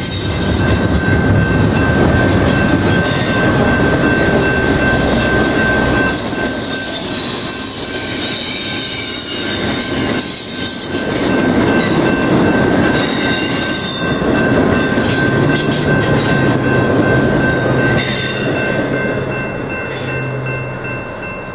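Double-stack intermodal freight cars rolling past at close range: loud wheel-on-rail rumble and rattle with a steady high-pitched wheel squeal over it. The sound fades near the end as the train moves away.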